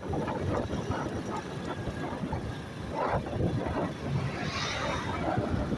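Vehicle on the move: steady engine and road noise, with a few short higher-pitched sounds about three seconds in and again near the end.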